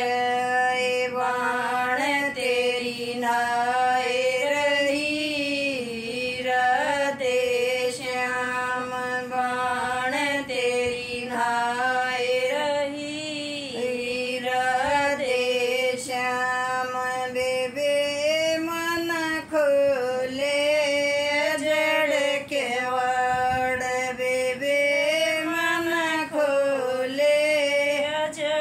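A woman singing a folk song solo and unaccompanied, in long, drawn-out notes that bend between phrases.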